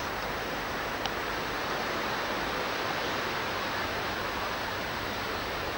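Steady rushing hiss of beach ambience, as picked up by an old camcorder microphone, with one faint click about a second in.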